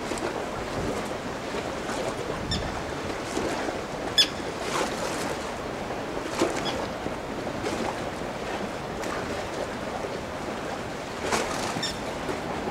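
Steady wind and water noise, with a few short, high chirps now and then.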